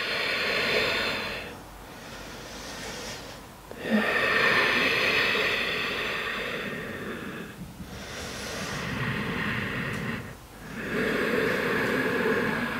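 A woman breathing slowly and deeply, each audible breath lasting two to four seconds with brief pauses between, about five breaths in all.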